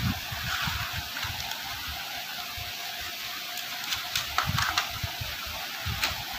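A packaging tray and the earbud charging case being handled by hand. There are soft bumps, then a cluster of short clicks and crinkles about four to five seconds in and one more near the end, over a steady hiss.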